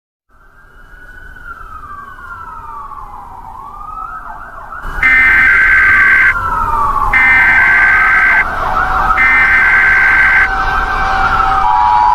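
Several wailing outdoor warning sirens, rising and falling in overlapping pitch, fade in and grow louder. About five seconds in, three one-second bursts of the screeching Emergency Alert System (SAME) header data tones sound over them, and near the end the steady two-tone EAS attention signal begins.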